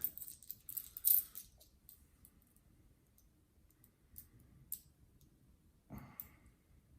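Silver dimes clicking against each other as they are handled and stacked: a cluster of light clicks in the first second and a half, scattered faint ticks, then another short cluster around six seconds in.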